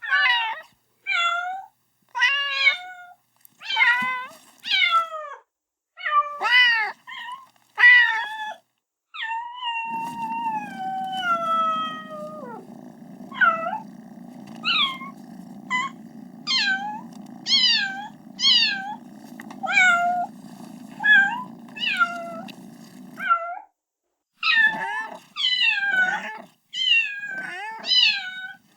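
A kitten meowing over and over, high-pitched, falling calls about one to two a second, calling for its mother. A few longer drawn-out meows come about a third of the way in, and a steady low hum sits under the calls through the middle stretch.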